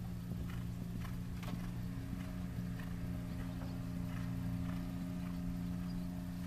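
Horse cantering and jumping on sand arena footing: faint, irregular hoofbeats over a steady low hum.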